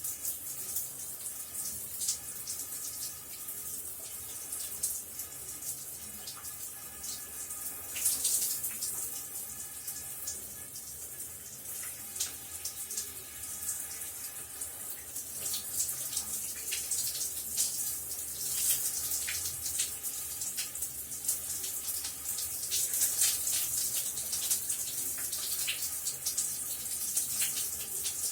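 Shower running: a steady high hiss of falling spray broken by frequent irregular splashes.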